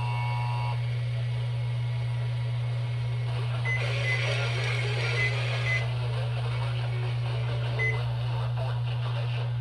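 Radio receiver audio with a loud steady hum underneath. A held cluster of tones cuts off under a second in, then about four seconds in a hiss comes up with a few short high beeps, and one more beep sounds near eight seconds.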